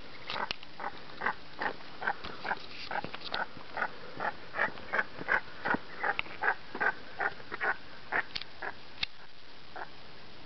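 Grebes calling in a rapid series of short, repeated calls, about three a second, which trail off near the end. The calls are an agitated reaction to being disturbed.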